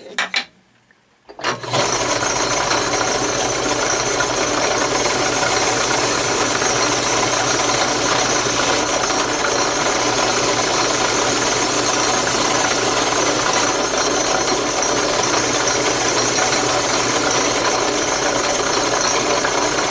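Drill press spinning a small sanding drum, switched on about a second and a half in and then running steadily while the edge of a wooden template is sanded against the drum.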